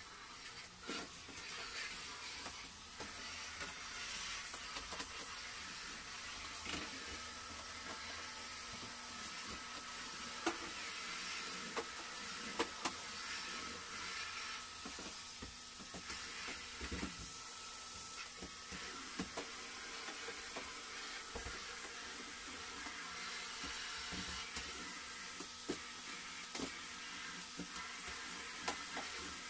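Canister vacuum cleaner running steadily as its wand is pushed over a wooden floor, with a few short knocks scattered through.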